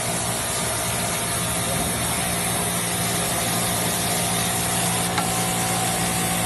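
Yamato industrial sewing head on an automatic tubular bottom-hemming machine running at a steady speed, stitching a T-shirt hem with a steady mechanical hum. The hum stops at the very end.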